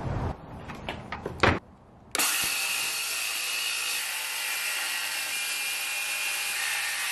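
Ridgid cordless circular saw cutting through a sheet of plywood: the blade's steady whine and rasp start suddenly about two seconds in and carry on without a break. Before it starts there are a few short knocks as the saw and board are handled.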